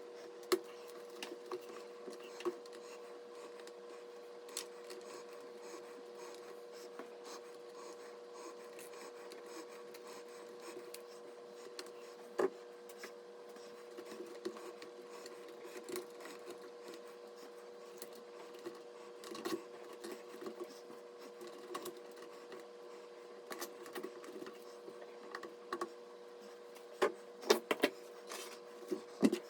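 Scattered light clicks and taps of small hardware being handled, over a steady hum, with a quick cluster of sharper clicks near the end.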